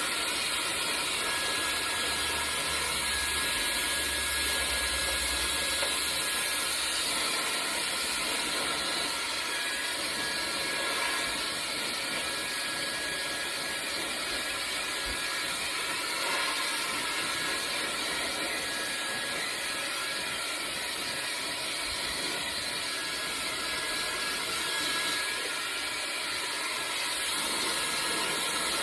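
Gamma+ XCell hair dryer running steadily, a constant rush of air with a thin high whine from its motor.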